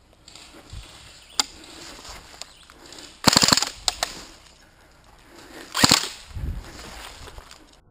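Airsoft guns firing. There is a single sharp shot about a second and a half in, a quick string of shots just after three seconds with two more close behind, and another quick string near six seconds.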